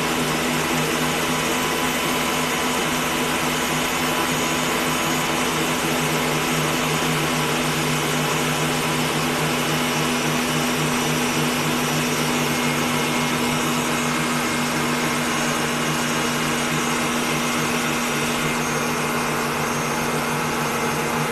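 Electric stand mixer running steadily, whipping marshmallow (zefir) mass: a constant motor hum with a whir over it.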